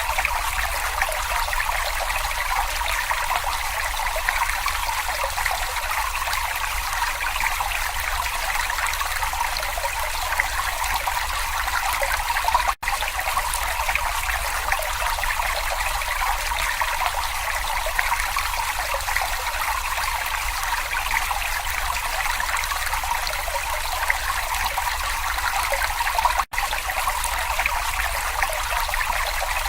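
Babbling brook: water trickling and splashing over stones in a steady, even rush, broken by two momentary gaps about 13 and 26 seconds in.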